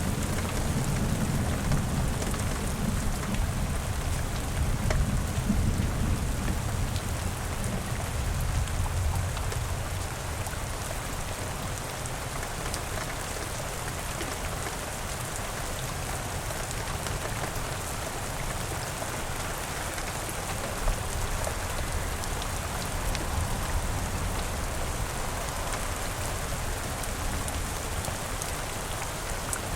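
Steady rain falling, with a low rumble of thunder over the first several seconds that fades away.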